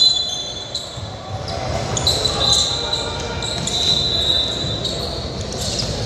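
Basketball game play on a hardwood gym floor: a ball bouncing, sneakers squeaking in high bursts near the start and again from about two and a half seconds in, and voices in the large hall.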